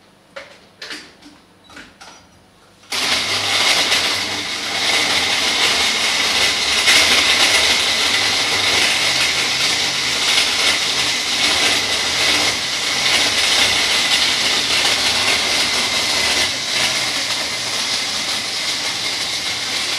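A few light clicks and knocks, then about three seconds in an electric blender switches on and runs steadily, blending a protein shake with milk and ice.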